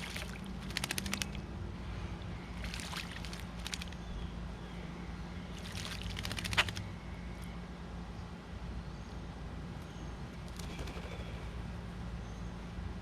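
A small bird splashing in a bird bath, wings fluttering in the water in four short bouts of rapid flicks, over a steady low hum.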